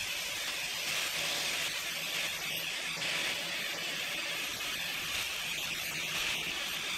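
Small angle grinder with a flap disc sanding rust off an oiled cast-iron cook stove top: a steady grinding hiss over the motor's hum.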